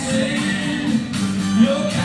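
A man singing a rock-and-roll number into a microphone over amplified backing music.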